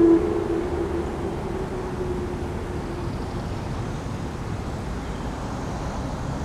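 Whelen WPS-2904 electronic outdoor warning siren ending its wail: the falling tone drops sharply in level just after the start and trails off over about three seconds. After that only a steady low traffic rumble remains.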